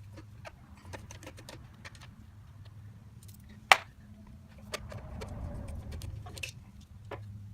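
Hand tools at work taking screws out of a riding mower's sheet metal: scattered small metal clicks and taps, with one sharp clink about 3.7 s in and a stretch of scraping and rattling near the end, over a steady low hum.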